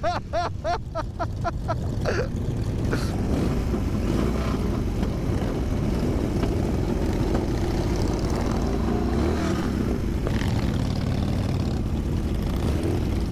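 Motorcycle engine running under a steady rush of wind and rain noise on a helmet camera. In the first two seconds there is a quick series of short pulses, about five a second.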